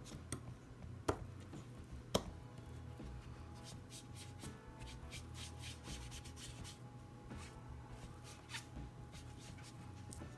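Foam sponge rubbed and dabbed over a homemade transparency-film cloud stencil on cardstock, blending ink, with a quick run of short scratchy strokes in the middle. Two sharp clicks about a second apart come near the start.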